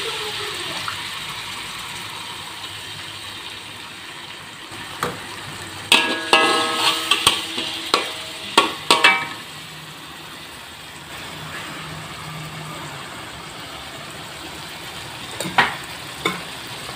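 Chili paste frying in hot oil in a wok, sizzling steadily at first and slowly fading. A metal spatula scrapes and clinks against the wok in a cluster of strokes midway through, then twice more near the end.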